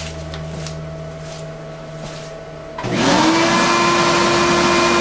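A Bridgeport milling machine runs with a steady hum. About three seconds in, a vacuum cleaner switches on: its motor whine rises quickly, then holds steady and loud over a rushing hiss of air.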